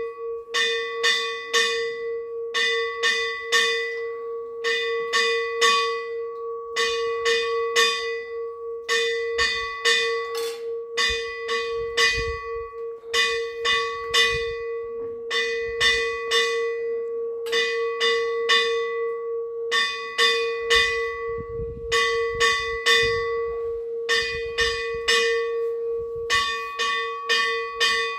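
Puja hand bell rung without a break in quick bursts of several strokes, a new burst about every second and a half, its ringing tone sustained under the strokes; the bell accompanies an incense offering to the deities.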